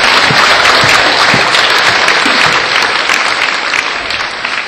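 Audience applauding, dense steady clapping that eases off slightly near the end.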